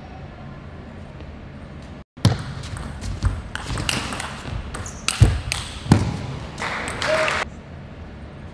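Table tennis rally: the ball clicks sharply off bats and table about every half second to second for several seconds. It ends with a short burst of voice or cheering.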